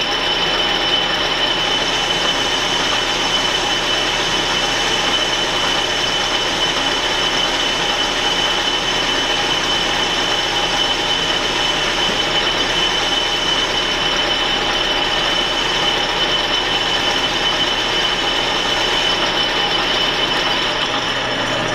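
Metal lathe boring a bore with a shop-made boring bar taking a 0.040-inch-deep cut: a steady cutting hiss with a constant high tone over the machine's running noise.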